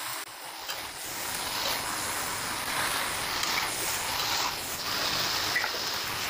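Chicken pieces frying in mustard oil in a steel kadai, a steady sizzling hiss.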